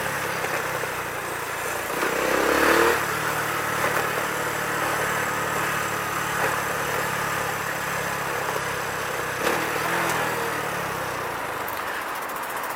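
Motorcycle engine running on the move in traffic, heard on board with steady wind and road noise, with a brief louder swell about two seconds in.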